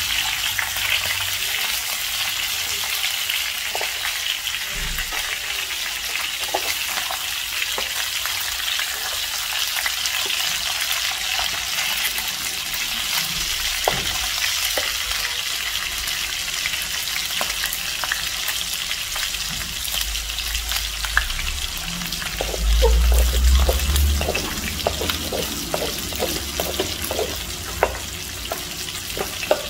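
Fish steaks sizzling steadily in hot oil in a frying pan, with crackles and occasional scrapes of a metal spatula in the pan. A brief low rumble stands out about 23 seconds in.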